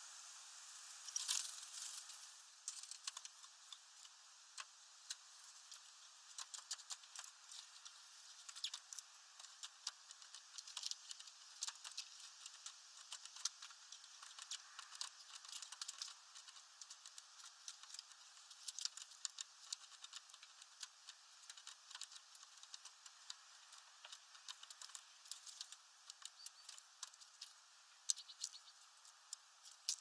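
Faint, irregular taps and clicks, some in quick runs: a tit pecking at sunflower seeds and picking among husks on a feeder tray.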